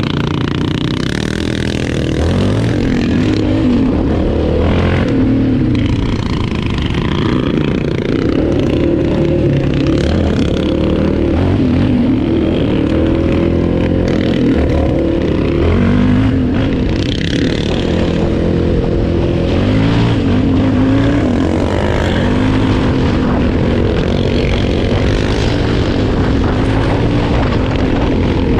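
A sport quad's engine being ridden hard, its pitch climbing and dropping again and again as it accelerates, shifts and backs off.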